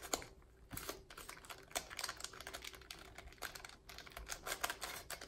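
Plastic clicking and clacking of a YJ heart-shaped 3x3 puzzle cube as its layers are turned by hand in quick, irregular moves, a turning the solver calls really sandy.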